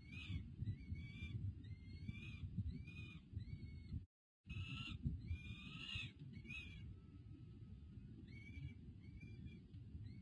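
Young peregrine falcons begging during a feeding, with repeated whining calls that rise then fall in pitch, about two a second, growing fainter near the end. A steady low rumble runs underneath, and the sound cuts out for a moment about four seconds in.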